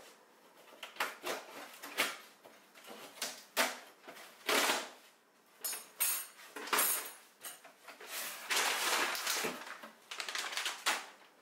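Cardboard shipping box being opened by hand: packing tape peeled and torn, flaps pulled open, cardboard scraping and rustling in irregular rips, the longest about eight to nine seconds in. Near the end a packaged bag rustles as it is lifted out.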